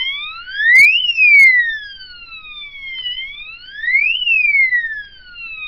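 Wireless burglar alarm siren set off in panic mode from the control panel: a loud electronic wail that rises quickly and falls slowly, repeating about every three seconds. A couple of sharp clicks come about a second in.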